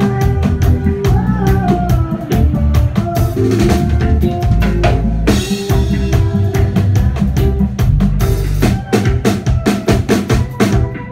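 Live reggae band playing: drum kit with snare and bass drum over bass guitar, and a woman singing into a microphone in the first half. The drumming gets busier from about halfway through.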